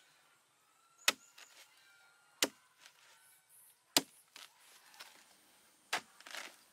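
A long-handled hoe-like blade chopping into the fibrous pith of a felled sago palm trunk: four sharp strikes about one and a half to two seconds apart. A short scraping rustle of fibres follows the last strike.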